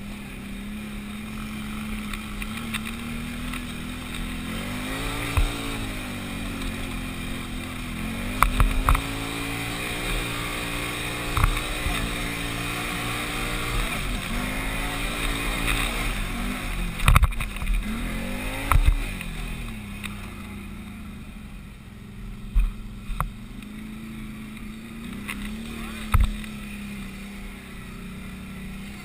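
Can-Am Outlander 500 XT ATV's V-twin engine revving up and down under load on a rough uphill climb, with several sharp knocks as the machine jolts over bumps. The engine settles to a lower, steadier note in the last few seconds.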